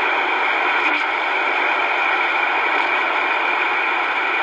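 Steady static hiss from the speaker of a National 8-channel 500 mW citizens band transceiver, with no station coming through.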